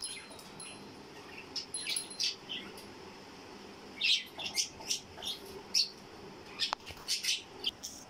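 Pet budgerigars chirping: a few short chirps about two seconds in, then a busier run of quick chirps from about four seconds on.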